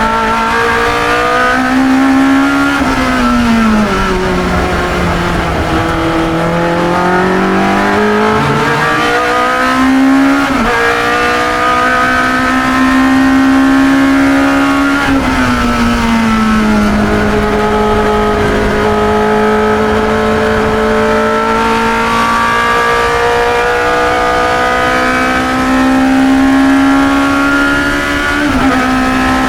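1972 Chevron B21 sports racer's engine heard onboard at racing speed, its pitch falling and rising through the corners with a few quick gear changes, the sharpest about ten seconds in.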